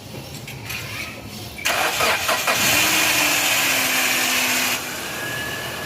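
A vehicle engine that had been cranking without starting now starts, catching with a sudden burst about a second and a half in. It runs loudly for about three seconds, then settles to a steadier idle.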